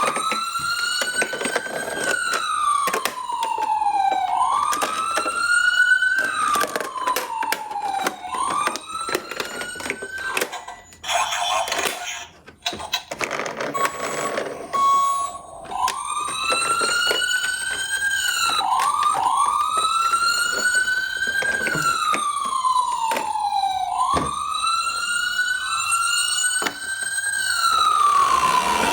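Wailing emergency-vehicle siren, each sweep rising quickly and then falling slowly, about every four seconds, with a second sweep overlapping at times. Under it is a rapid irregular clicking and clattering of die-cast toy cars rolling down a slope. The siren breaks off briefly about eleven seconds in during a burst of clatter.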